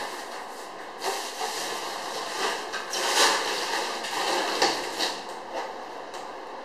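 Handling noise from unpacking a refrigerator: irregular scraping and rustling with several sharp knocks, starting about a second in and fading out near the end.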